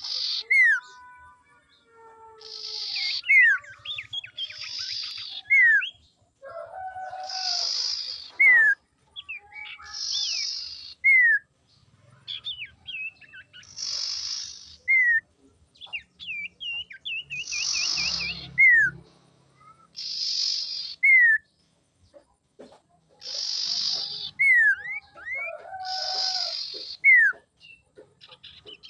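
Common ioras calling over and over. Each phrase is a short buzzy rasp followed by a clear falling whistle, repeated every two to three seconds, with a fast wavering trill about halfway through.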